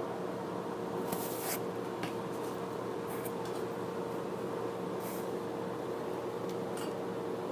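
Small heart-shaped metal tins and lids being handled: a few short scrapes and rubs of tin, the longest about a second in, over a steady background hum.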